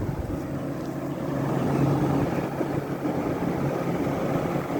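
Vintage Crossley window air conditioner, an Emerson-built 5000 BTU unit, running: a steady rush of fan air over the constant low hum of its reciprocating compressor.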